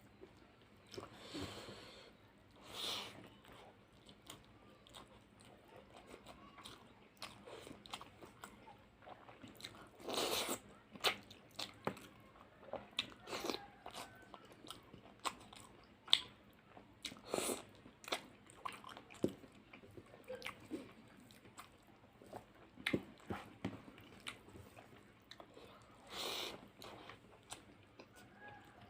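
A person eating close to the microphone: irregular chewing, biting and crunching with wet mouth clicks, and a few louder sounds every several seconds.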